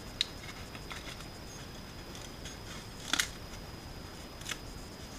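Brittle, 80-year-old paper cone of a Pathe Model R loudspeaker crackling as gloved hands flex and handle it: a few sharp crackles, the loudest a quick double one about three seconds in.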